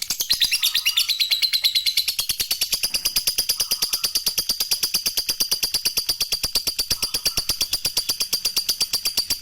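Lovebird doing its long 'ngekek' chatter: an unbroken run of rapid, sharp, high chirps at about ten a second.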